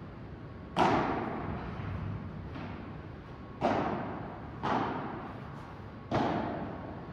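Padel ball being hit back and forth in a rally: four sharp pops one to one and a half seconds apart, the first the loudest, plus a fainter one between them, each ringing on in the echo of a large hall.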